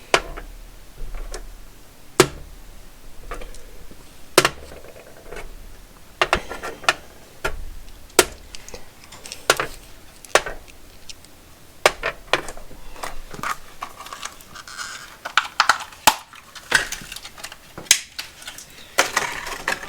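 Loose M8 metal bolts clinking and tapping together as they are handled and sorted, in irregular sharp clicks every second or two, with some rustling near the end.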